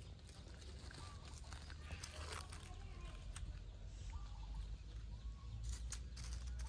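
Faint outdoor ambience: a low rumble that grows a little louder, with a few short faint calls and distant voices.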